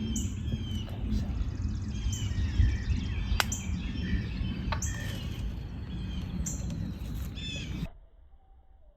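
Songbirds chirping and singing in woodland over a steady low rumbling noise, with two sharp clicks a second and a half apart midway. Near the end the sound cuts off abruptly to a much quieter background with one fainter bird singing.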